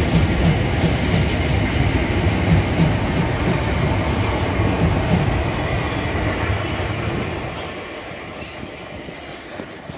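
Train running past on the rails, a steady rumble of wheels on track that fades away over the last few seconds.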